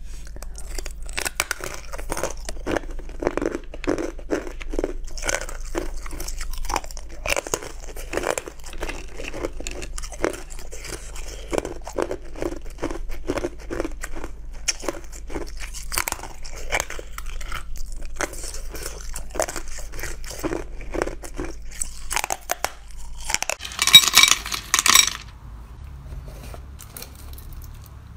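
Close-up bites and chewing of frozen green ice slabs: a quick run of crisp crunches, repeated over and over. About 24 s in comes one louder, harsher burst, and the crunching then stops.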